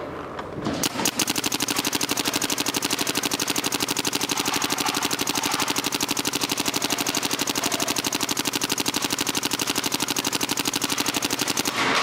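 Planet Eclipse GSL paintball marker firing a long, unbroken string of rapid, evenly spaced shots, the marker capped at 12.3 balls per second. The string starts about a second in and stops just before the end.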